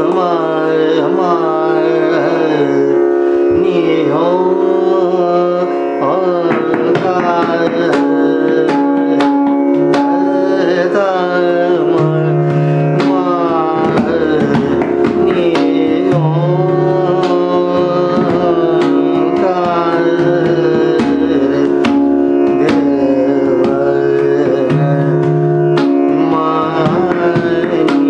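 Male dhrupad singer singing a slow, gliding melody over a steady tanpura drone, accompanied by pakhawaj drum strokes that grow more frequent after the first several seconds.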